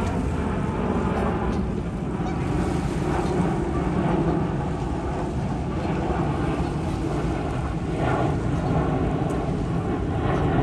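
Jet engines of a departing Boeing 767 airliner climbing out after takeoff: a loud, steady, rumbling roar.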